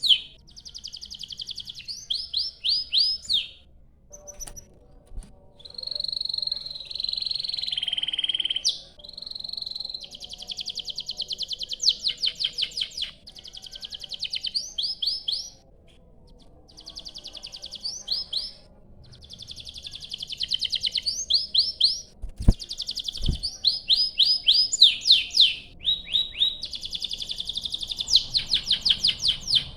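Domestic canary singing a long, continuous song of fast trilled rolls and quickly repeated chirps, broken by short pauses. About six seconds in comes a held whistled note that drops in pitch before the rolls resume.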